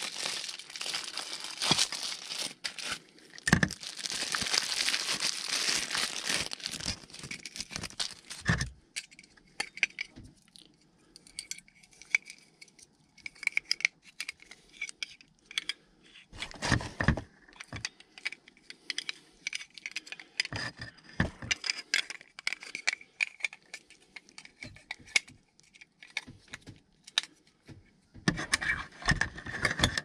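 Crinkling and rustling, like someone moving against foil-jacketed flex duct and attic insulation: dense for about the first eight seconds, then scattered light clicks, rattles and rustles.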